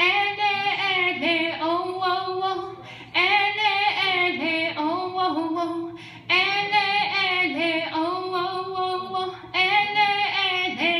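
A solo female voice singing into a handheld microphone, in phrases about three seconds long with short breaths between them.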